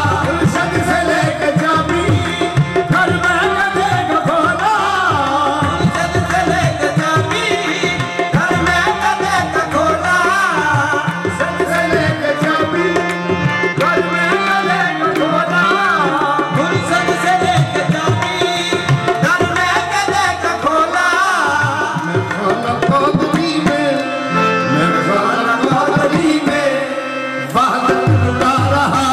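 Live qawwali: a lead singer and chorus voices singing over harmoniums, with tabla keeping the rhythm.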